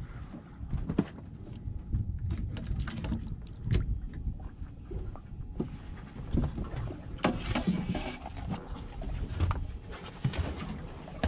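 Irregular knocks and clatter on a small fishing boat's deck over a steady low rumble of wind and water.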